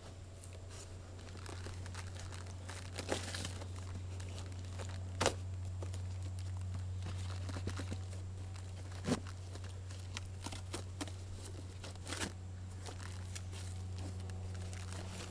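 Packaging being unwrapped and torn open, with repeated crinkling and tearing and several sharp knocks as parts are handled, over a steady low hum.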